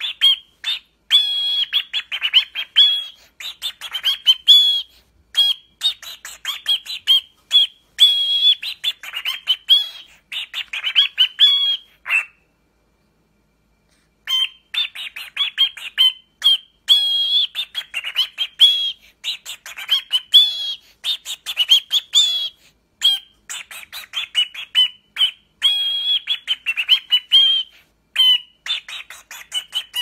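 Cockatiel chirping and warbling in a fast run of short, high chirps, repeating one clear whistled note over and over. It breaks off completely for about two seconds near the middle, then resumes.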